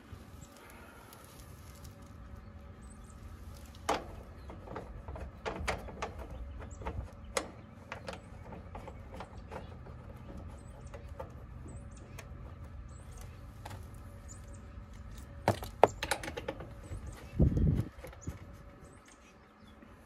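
Scattered sharp clicks and taps of hand tools and brass fittings being worked at an air-conditioner condenser's service valves, with a dull low thump about three-quarters of the way through.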